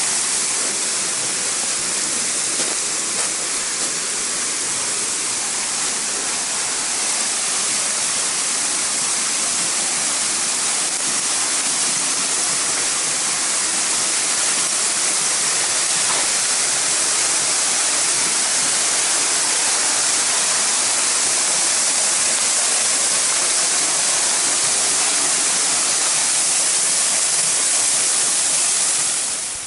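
Waterfall rushing: a loud, steady hiss of falling water that cuts off abruptly near the end.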